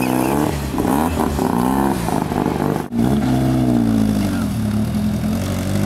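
Mazda RX-7's rotary engine revving up and down as the car pulls away. After a cut about three seconds in, a Toyota Corona's engine revs up, then settles to a lower, steady pitch as it drives off.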